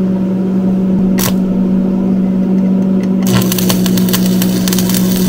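An engine runs at a steady speed, and about three seconds in a welding arc strikes and crackles and sizzles continuously over it as a bead is laid on the steel receiver.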